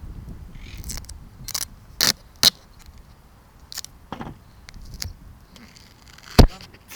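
Irregular sharp clicks and knocks, with one loud knock near the end, over a low rumble in the first second.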